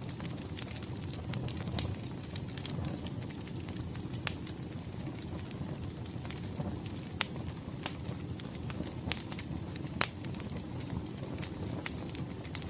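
Wood fire crackling, with irregular sharp pops throughout (the loudest about four and ten seconds in) over a steady low rush.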